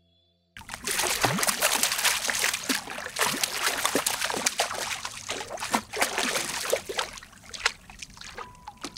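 Ornamental carp crowding at the surface of a small tank, splashing and sloshing the water in a dense, irregular patter. It starts abruptly about half a second in.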